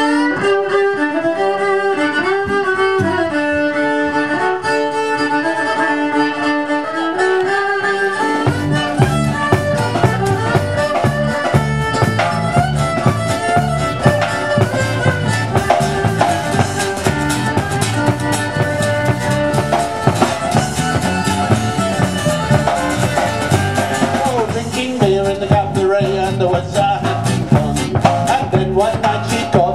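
Live country band playing an instrumental intro: a fiddle plays the tune alone, then about eight seconds in the band comes in underneath with bass and a steady beat.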